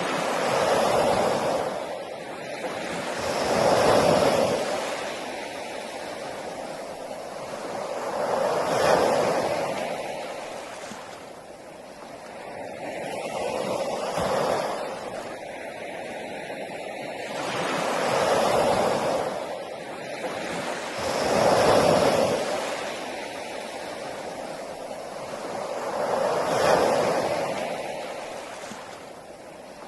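Sea waves breaking on a beach, one after another. Each one swells up and washes away, arriving about every four to five seconds.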